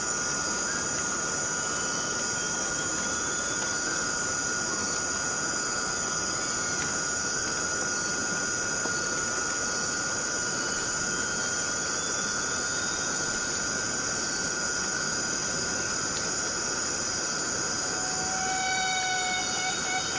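Rain falling steadily on rainforest foliage under a continuous high-pitched insect drone. A rapidly pulsing animal call starts near the end.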